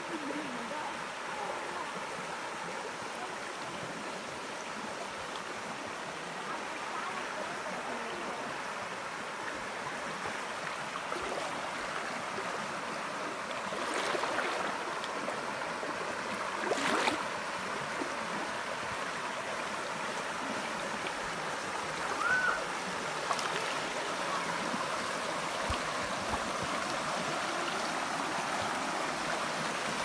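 Shallow stream running over rocks: a steady rush of water, with two brief knocks about 14 and 17 seconds in.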